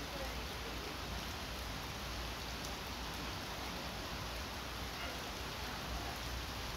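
Rain falling steadily, an even hiss with a low rumble beneath it.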